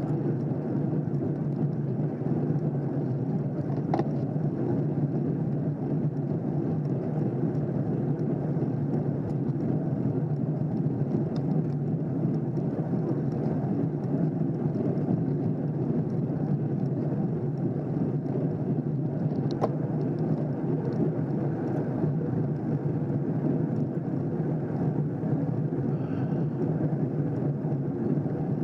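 Road bicycles rolling in a pack on asphalt, heard from a camera on one of the bikes as a steady, muffled rushing noise, with a few faint clicks about 4 and 20 seconds in.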